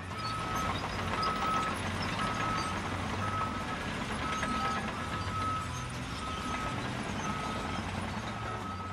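Truck sound effect: a reversing beeper sounding about once a second over steady engine noise.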